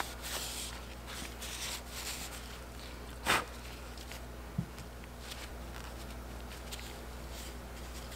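Gloved hands handling small water pump seal parts on a shop towel, with soft rubbing and rustling, then one sharp knock about three seconds in and a softer thump a second later as parts are set down, over a steady low hum.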